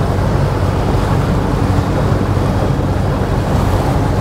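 Motorboat running at speed: a steady, loud engine drone with rushing water and wind buffeting the microphone.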